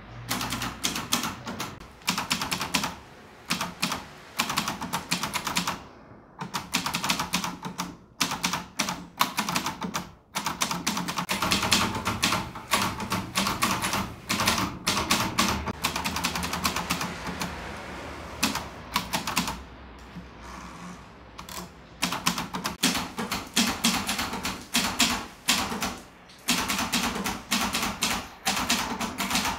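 Manual typewriter being typed on fast, the keys clacking in quick runs broken by brief pauses every few seconds.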